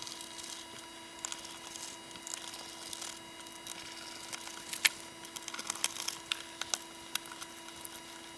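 Light clicks and scrapes of a small screwdriver and fingers working screws out of a handheld oscilloscope's plastic case and circuit board. The clicks come irregularly and grow more frequent in the second half.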